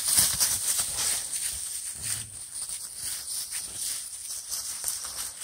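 Dry fallen leaves crunching and rustling underfoot as dogs move across the leaf litter, a dense, irregular crackle of small ticks.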